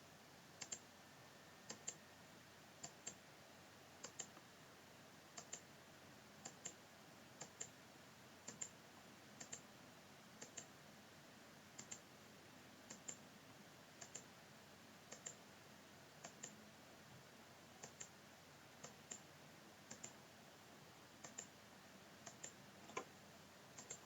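Computer mouse clicking at a steady pace, about once a second. Each click is a quick double snap of the button pressing and releasing.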